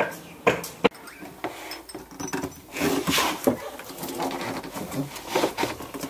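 Metal knocks, clanks and rattling from a pipe wrench being handled and set onto an old ball valve on a boat's seacock: two sharp knocks early on, then a busier clatter about three seconds in.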